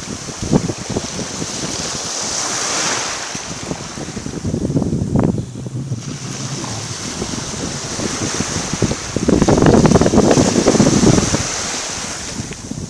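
Small sea waves washing in and breaking on a sandy beach, with wind buffeting the microphone; the rushing noise swells louder for a couple of seconds about nine seconds in.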